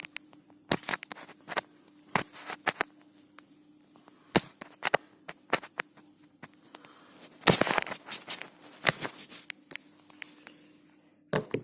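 Irregular sharp clicks, taps and knocks of objects being handled, thickest in a rustling stretch past the middle, over a faint steady hum.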